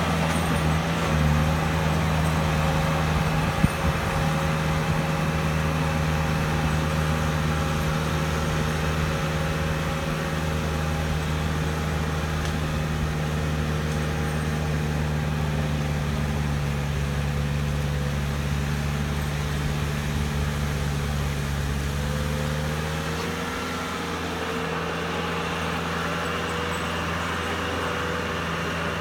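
Heavy snowplow's diesel engine running at a steady working note, then settling to a lower, quieter note near the end; a single knock sounds a few seconds in.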